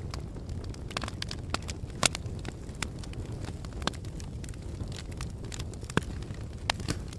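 Fire crackling with frequent irregular sharp pops, the loudest about two seconds and six seconds in, over a low steady rumble of blowing wind.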